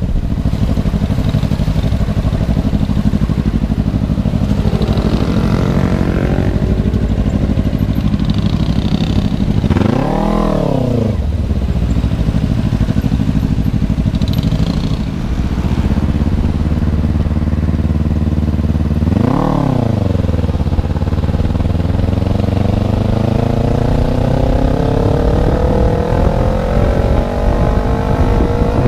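Kawasaki Ninja 250Fi parallel-twin engine running with no exhaust fitted, its open-header sound raw and loud as the bike is ridden. Twice the revs jump up and drop straight back in about a second, and near the end the engine pulls steadily higher in pitch as the bike accelerates.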